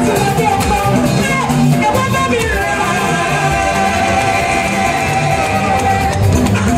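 Amplified live gospel praise band: a woman singing into a microphone over electric guitars and drums, with a long held note through the middle.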